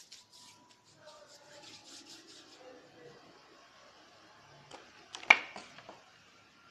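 Faint rubbing and rustling of hands handling protective gear, then one sharp plastic click about five seconds in as a clear face shield is fitted over the head.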